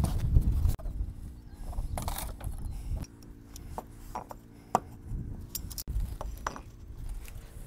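Metal RhinoBond plates clinking and tapping as they are handled from a stack and set down on insulation board, a few scattered clicks. A loud low rumble at the start.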